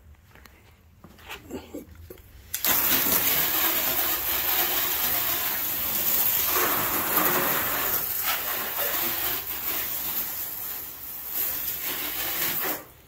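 Water spraying onto a car as it is rinsed during a wash: a steady hiss that starts abruptly a few seconds in, runs about ten seconds and cuts off just before the end.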